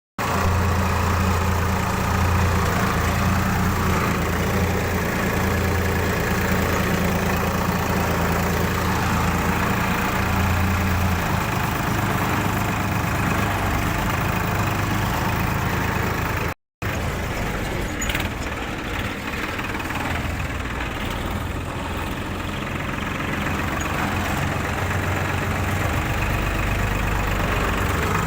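Swaraj 963FE tractor's diesel engine running steadily while it powers a tractor-mounted combine harvester, with a deep, even hum. The sound cuts out for a moment about 17 seconds in, then the engine carries on with less low drone.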